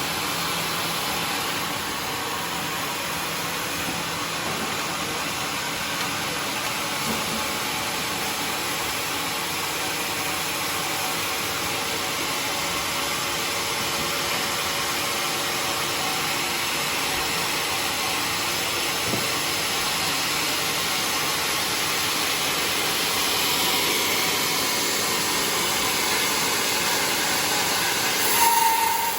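Sawmill saw running through timber: a steady, noisy hiss of blade and motor, with a brief louder squeal near the end.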